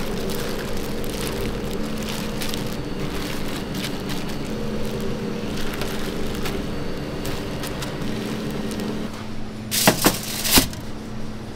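Gloved hands tossing food in dry flour in a stainless steel bowl and tray: rustling of the flour and crinkling of the plastic gloves over a steady hum. Two sharp knocks come close together near the end.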